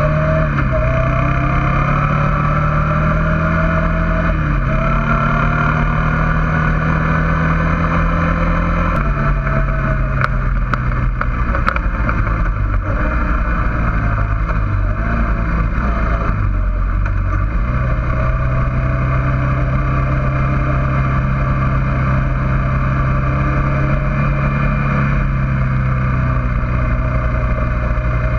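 Suzuki King Quad 400 FS ATV's single-cylinder four-stroke engine running steadily while riding, heard close up. About a third of the way in the engine note drops and wavers for several seconds, with a few sharp ticks, then holds steady again.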